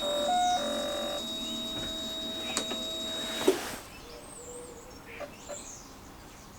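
Motorcycle fuel pump priming with the ignition switched on, a steady electric whine with a few steps in pitch in the first second, cutting off about three and a half seconds in. Birds chirp faintly afterwards.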